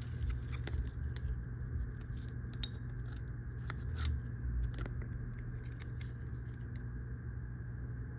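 Scattered small clicks and taps of small phone parts being handled during an iPhone screen repair, as the battery connector is fitted, over a steady low hum. The clicks stop about seven seconds in.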